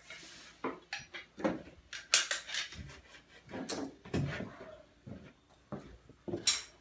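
Ceramic tiles and tiling tools knocking and clattering in irregular sharp knocks, roughly one a second, with a short hiss at the start.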